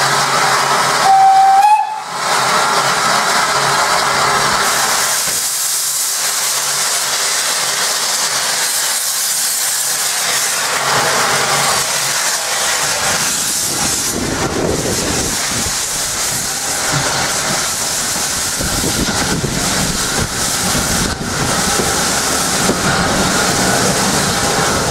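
SECR H class 0-4-4 tank engine No. 263 sounds one short whistle, then steam hisses as it starts away. From about the middle, the engine's slow exhaust beats and the rumble of the carriages rolling past take over.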